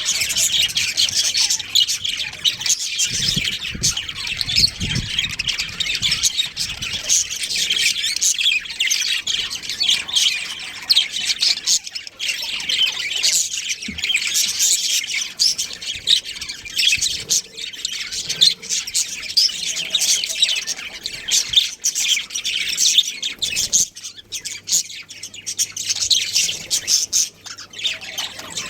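Budgerigars chirping and chattering without a break, many quick overlapping chirps and squawks.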